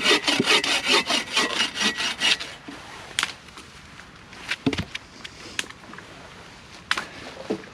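Hand saw cutting wood in quick, even strokes, about four or five a second, stopping about two and a half seconds in. A few sharp clicks and knocks follow.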